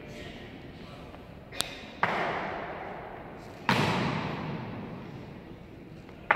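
Three loud, sharp drill impacts from a ceremonial honour guard, a couple of seconds apart, each dying away in a long echo; a lighter click comes just before the first.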